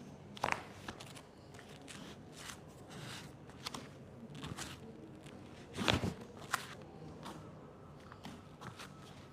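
Scattered short clicks, taps and rustles of a patient's body and clothing being handled during a chiropractic adjustment, with louder knocks about half a second in and about six seconds in.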